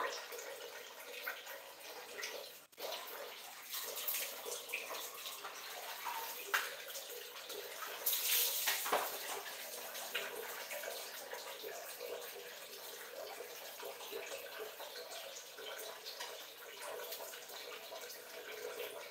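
Water splashing and trickling on a tiled bathroom floor during a bucket bath, with a louder splash about eight seconds in and smaller ones around four and six and a half seconds.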